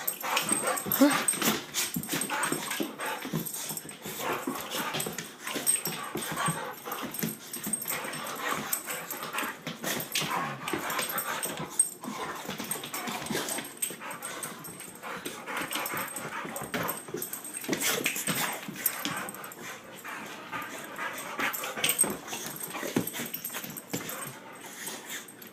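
A dog making excited noises at the prospect of a walk, with many short, sharp clicks and knocks scattered irregularly throughout.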